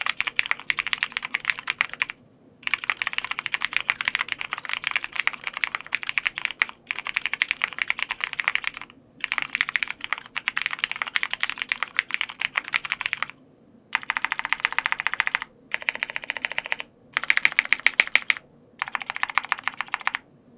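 Typing on a Bubble75 mechanical keyboard with lubed Cherry MX Brown tactile switches, filmed switches and a polycarbonate plate, under dye-sub PBT keycaps. The key presses come in quick runs separated by brief pauses.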